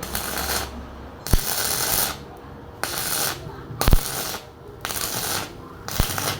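Electric arc welding in short runs: the arc is struck about six times, each time crackling and sizzling for half a second to a second before breaking off, several strikes starting with a sharp crack. A test weld with a freshly repaired welding machine.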